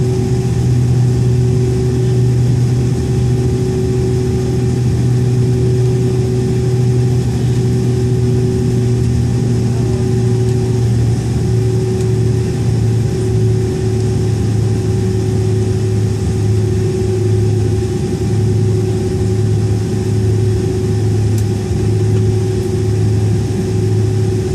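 Boeing 767-400ER's turbofan engines heard inside the cabin while taxiing, a steady low drone with a constant higher hum above it.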